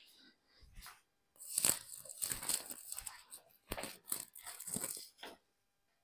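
Irregular rustling and scuffing from about a second and a half in, clothing rubbing against a clip-on microphone as its wearer moves.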